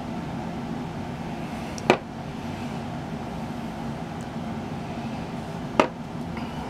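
Two sharp knocks, about two seconds in and again near the end, as small plastic-mounted rubber stamps are handled and set down on a tabletop, over a steady low room hum.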